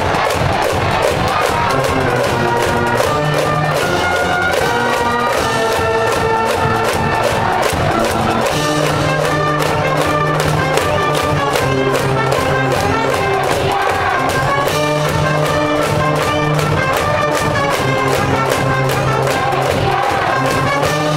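A school brass band in the cheering stands playing a fight song: trumpets and trombones in held, stepping notes over a regular beat.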